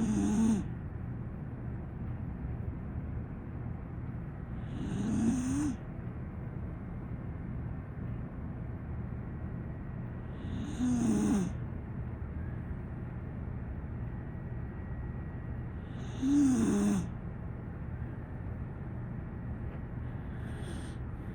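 A sleeping pocket pit bull dog snoring, one snore about every five seconds, five in all with the last one faint. Under it runs a steady low background hum.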